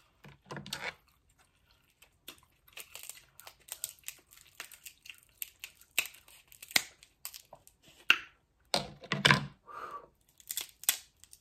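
King crab knuckle shell being cracked and picked apart by hand, close to the microphone: a run of small crackles, snaps and clicks, mixed with chewing.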